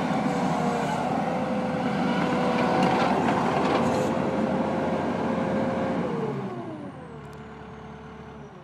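Gehl CTL70 compact track loader's 81-horsepower turbo diesel running at high throttle with a steady whine. About six seconds in, it is throttled back: the whine slides down in pitch and the engine settles to a quieter idle.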